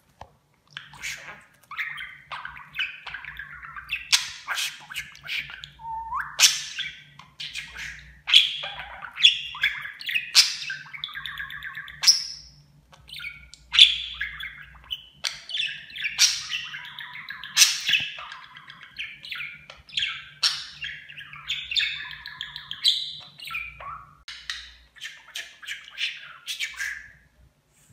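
Budgerigar warbling and chattering almost without pause, starting about a second in: a fast, jumbled run of chirps, squeaks and clicks.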